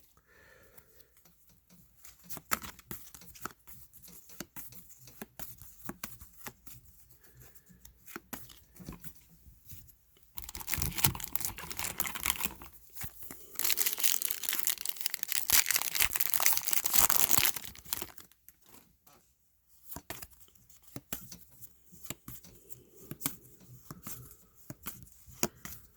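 A trading-card pack wrapper being torn open and crinkled, in two loud stretches near the middle, with light clicks and rustles of cards being handled and flipped through before and after.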